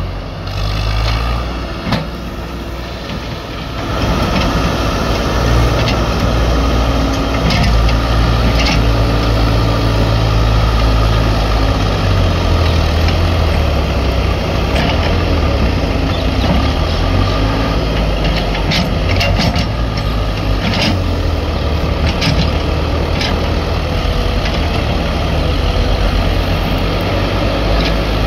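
Diesel engine of a farm tractor running steadily under load as it hauls a trailer heaped with soil up a dirt track, with a few sharp clatters scattered through. For the first few seconds, before it gets louder, a backhoe loader's engine runs beside the loaded trailer.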